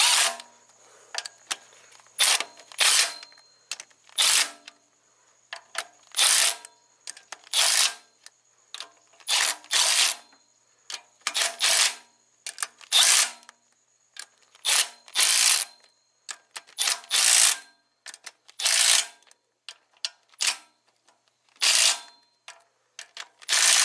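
Ratchet wrench on a socket extension clicking in short bursts, about one a second, as the camshaft cap bolts are run down evenly.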